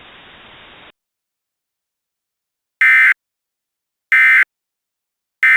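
Emergency Alert System end-of-message data bursts: three short, shrill digital buzzes about 1.3 seconds apart, the SAME code that marks the end of an alert. Before them a faint hiss cuts off within the first second.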